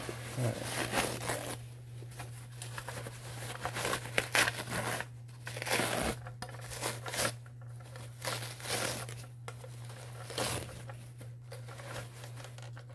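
Soft white paper wrapping crumpling and rustling in irregular bursts as it is pulled off a die-cast model car, with occasional short tearing sounds.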